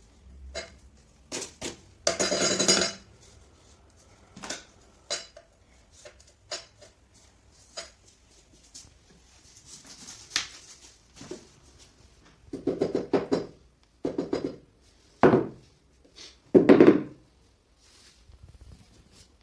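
Hard objects clinking and knocking against each other in a string of separate clatters, with a longer clatter about two seconds in and a run of louder knocks near the end.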